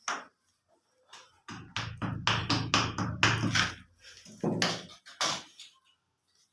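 A quick run of sharp taps and knocks over a low steady hum for a couple of seconds, then two more single knocks.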